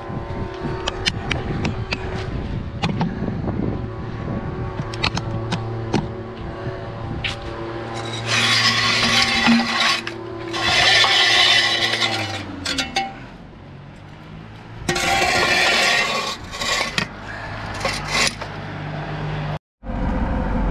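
Light metallic clinks and scrapes of tools on a car exhaust, then three hisses of an aerosol spray, each a second or two long, in the middle of the stretch: penetrating oil being sprayed onto the exhaust's oxygen sensor to loosen it. A steady engine hum runs in the background and winds down in pitch a little past halfway.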